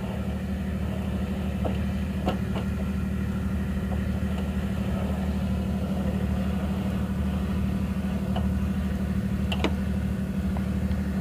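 Large diesel truck engine idling steadily with an even low hum. A few light metallic clicks come over it, about two seconds in and again near the end.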